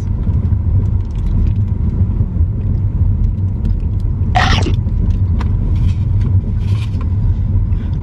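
Steady low road rumble of a moving car heard from inside the cabin, with one short brighter noise about four seconds in.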